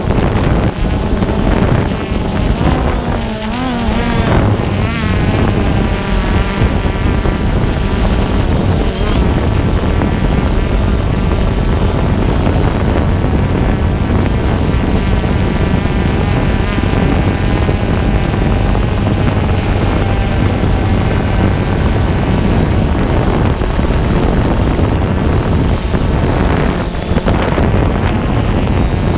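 DJI Phantom 2 quadcopter's four motors and propellers whirring, heard from a camera mounted on the drone itself, with wind buffeting the microphone. The pitch wavers up and down a few seconds in as the drone manoeuvres, then holds steadier.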